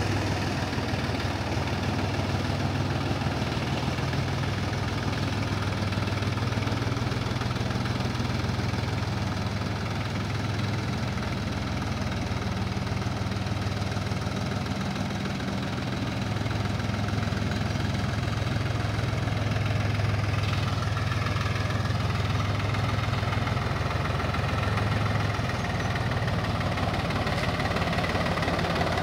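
Mahindra DI diesel tractor engine running at low, steady revs as the tractor creeps along in first gear.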